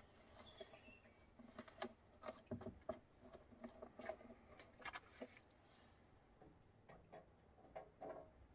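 Faint, irregular clicks and taps from handling a chainsaw's bar-oil filler cap and oil container.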